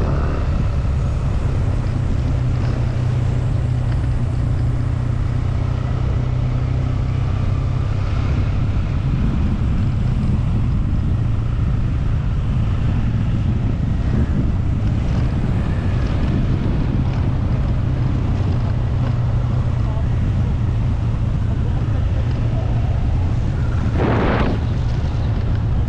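Motorcycle ride: a steady low rumble of the engine and of wind buffeting the microphone, with a short burst of noise near the end.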